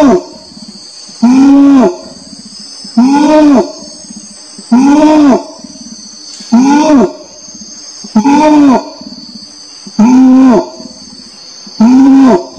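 Orangutan calling: a short, deep hooting call that rises and falls in pitch, repeated about every 1.7 seconds with each call sounding the same, over a steady high insect buzz.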